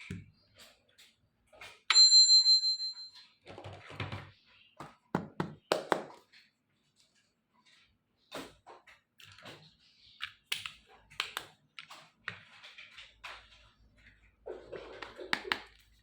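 Small plastic toy kitchen pieces being handled and set down, with a run of sharp clicks and knocks. About two seconds in, a single bright ding rings for just over a second, and near the end there is a brief rustle.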